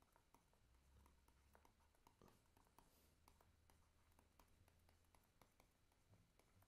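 Near silence: faint room tone with a low hum and soft, irregular ticks of a stylus writing on a tablet.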